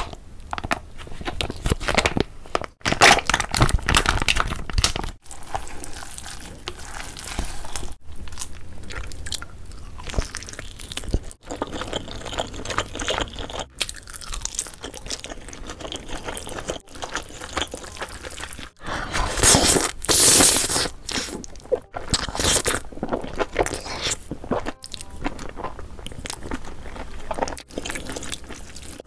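Close-miked mukbang eating sounds: thick chili sauce squeezed from a pouch onto cold noodles, wet noodles mixed with chopsticks, and chewing. The passages change abruptly every few seconds.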